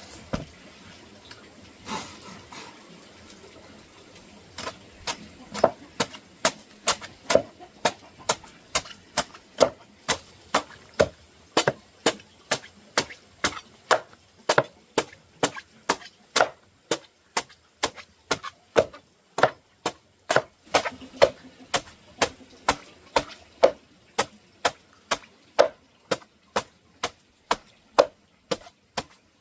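Steady chopping: a blade striking wood over and over, about two to three strokes a second, after two separate knocks near the start.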